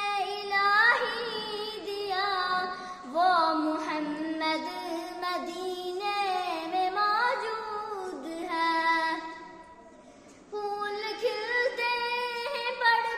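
A young girl singing an Urdu naat solo, holding long gliding, ornamented notes. There is a brief pause for breath about ten seconds in, then the singing resumes.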